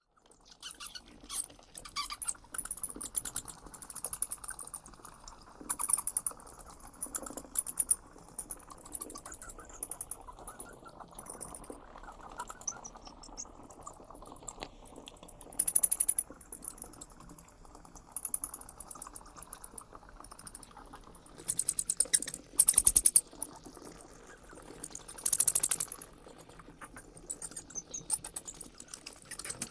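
Bats chittering: bursts of very rapid, high-pitched squeaks and clicks, each lasting about a second, repeating with short pauses between them.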